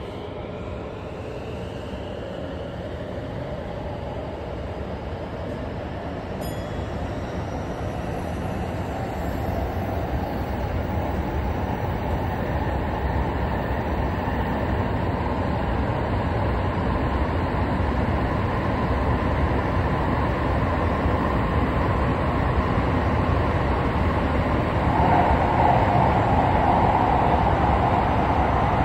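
Tsukuba Express electric train heard from inside the car as it picks up speed: a rising electric motor whine at the start, then running noise that grows steadily louder, with a stronger hum coming in near the end.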